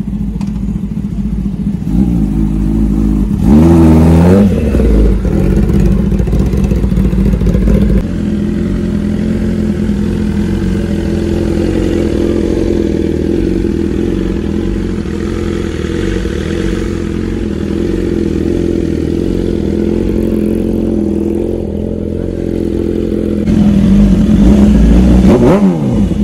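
Inline-four superbike engine revved hard a few seconds in, then idling steadily for a long stretch, and revved again near the end. The idling and the last revs come from a BMW S1000RR.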